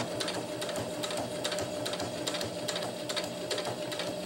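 Electric sewing machine stitching slowly through several layers of ripstop nylon, with a steady motor whir and a regular clicking of the needle strokes.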